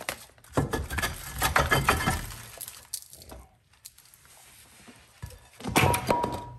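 Rusty rear brake rotor being worked loose and pulled off the wheel hub: a run of metal scraping and clanking in the first couple of seconds, after penetrating oil and light taps freed it. Near the end a second sharp metal clatter with a brief ring.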